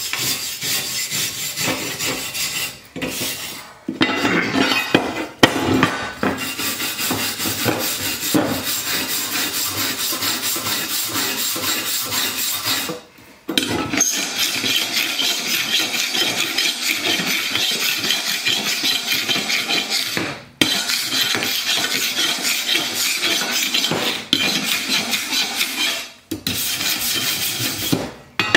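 Hand wire brush scrubbing back and forth over freshly welded steel plate, cleaning the welds in rapid scratchy strokes with a few short pauses. A few louder knocks come about four to five seconds in.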